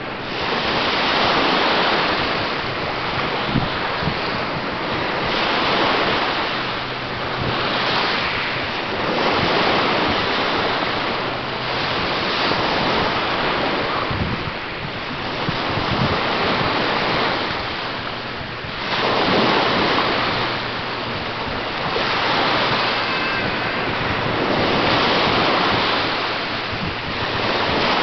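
Small Lake Michigan waves breaking and washing up a sandy beach, each one swelling and fading every two to three seconds, with wind buffeting the microphone.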